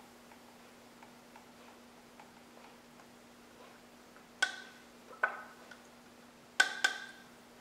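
Water drops from a dropper ticking faintly into a paper bowl on a balance scale, a little over two a second. About four seconds in come four sharp, ringing clinks, the last two close together, as the dropper knocks against the small cup of water.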